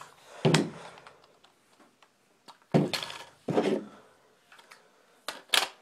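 Handling knocks and clicks as the action camcorder is fitted into its plastic mount: five or so separate sharp knocks, two of them close together near the end.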